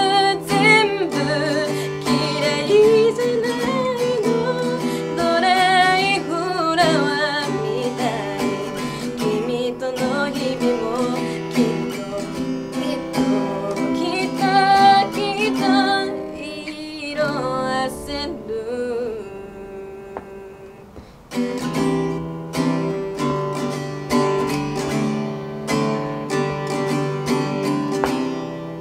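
A young girl singing a pop ballad live over acoustic guitar strumming. Her voice drops out about halfway through, the music thins and softens, and just after two-thirds of the way in the guitar picks back up with strummed chords and no voice.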